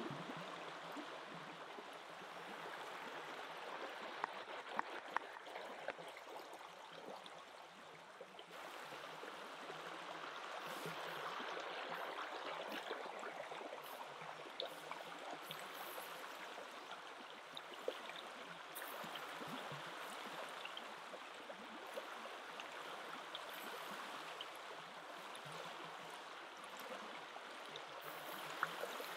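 Steady rush of a flowing river. From about a third of the way in, light crackling and ticking from sea bream grilling on a rack over charcoal embers joins it.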